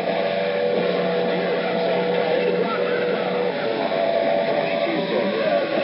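Crowded CB radio channel 6 (27.025 MHz) heard through the receiver: several stations keyed up over each other, with steady heterodyne whistles, warbling tones and hiss, and garbled, unreadable voices underneath.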